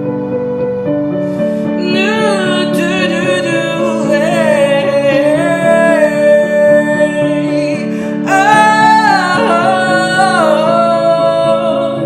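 Music: a solo singer holding long, wavering notes over instrumental accompaniment. The voice comes in about two seconds in.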